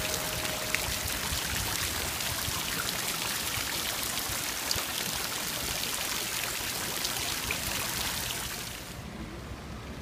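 Water from a courtyard fountain splashing down into its wide basin, a steady rush of falling water. It cuts off about nine seconds in, leaving a quieter outdoor background.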